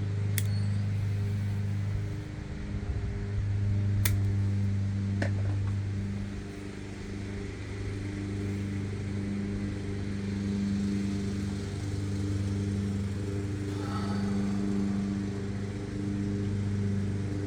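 A steady low machine hum that slowly swells and fades, with a few sharp clicks, the loudest about four seconds in.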